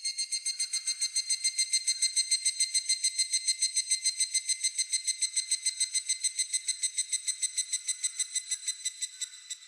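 A higurashi (evening cicada) singing its kana-kana-kana song: one long train of rapid, evenly spaced high-pitched pulses, about eight a second, which fades near the end. Fainter insects chirr steadily beneath it.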